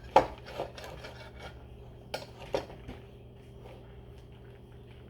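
Homemade slime being mixed by hand in a container: a few sharp knocks and clacks against the container, the loudest about a quarter second in, then quieter clicks as the sticky batch is worked.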